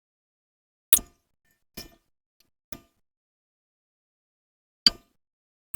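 Short, sharp metallic clinks of small metal parts or tools, five spaced unevenly, the loudest about a second in and near the end.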